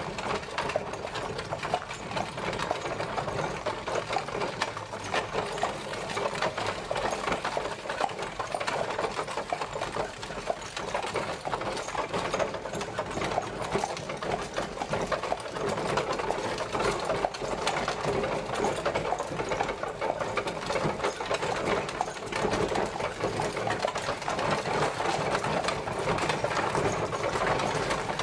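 Horse-drawn carriage travelling, a steady, dense, rapid clatter and rattle of the carriage and its wheels with no let-up.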